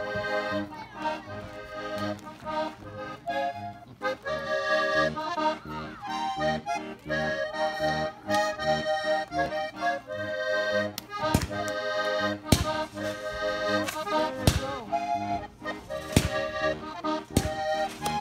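Music with held chords over a steady pulsing bass beat. From about halfway through, about six sharp firework bangs cut through it.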